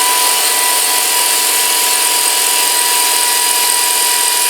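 Pneumatic wrench running on compressed air, a steady loud hiss with a high whine, as it spins out a skid-plate bolt.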